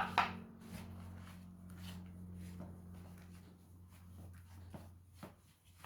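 Faint kitchen handling as cold liquid is added to a bowl of flour mix: a sharper knock or clink at the start, then scattered light taps and scrapes, over a steady low hum.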